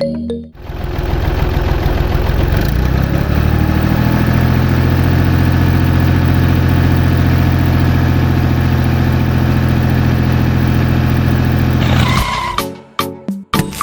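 Tractor engine running, uneven at first, then settling into a steady drone about four seconds in. It cuts off suddenly near the end.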